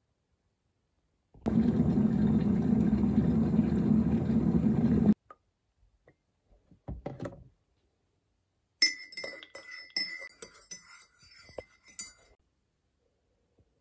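A loud steady rushing noise for about four seconds that starts and stops abruptly, a short faint sound, then a teaspoon stirring coffee in a ceramic mug, clinking sharply against the sides many times for about three and a half seconds.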